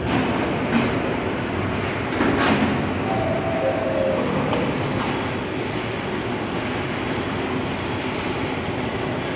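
R62A New York City subway train running on the rails, with a steady rumble and brief wheel squeal about three seconds in.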